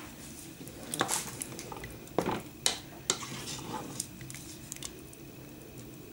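A spoon knocking and scraping against a pot of soup as it is stirred, giving several sharp clicks over a low steady hum.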